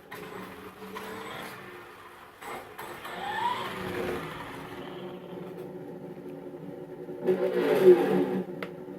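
Simulated engine sound from the Traxxas Slash's on-board audio speaker, running steadily after being started, rising in pitch about three seconds in and getting louder in a rev near the end.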